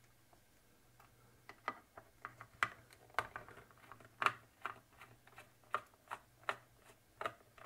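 A string of irregular light clicks and taps, starting about a second in: a screwdriver working at a screw in the plastic base of a plasma disc lamp. The screwdriver is too short for the recessed screw.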